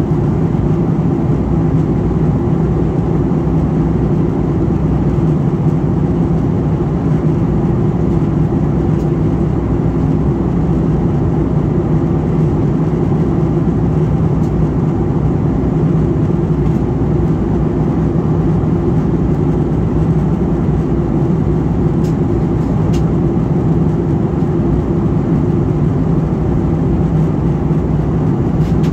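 Steady cabin noise of an airliner in flight, heard from inside the cabin: engine and airflow noise with a constant low hum, unchanging throughout.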